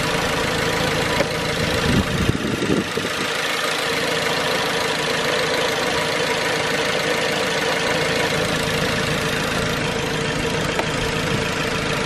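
Nissan KA24DE 2.4-litre four-cylinder engine of a 1999 Altima idling steadily, running on a freshly replaced fuel filter.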